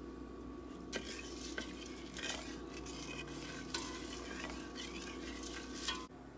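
A cooking utensil stirring and scraping in a pot or pan, with a few sharp clinks, stopping suddenly near the end.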